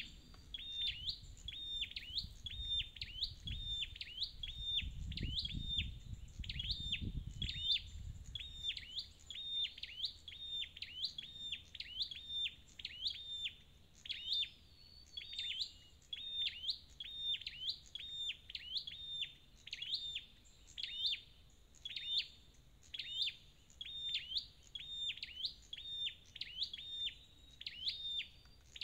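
Scarlet-backed flowerpecker calling: a steady, unbroken run of sharp, high chip notes in quick short groups, repeating over and over.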